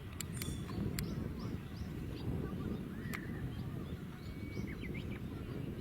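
Small birds chirping and whistling in short calls over a steady low rumble, with a few sharp clicks in the first second and another about three seconds in.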